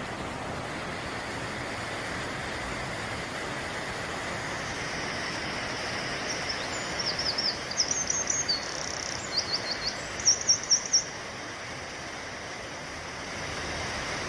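Waterfall's steady rush of falling water. From about six and a half seconds in, a small songbird sings a run of high, quick chirps over it, ending in four sharp notes about eleven seconds in.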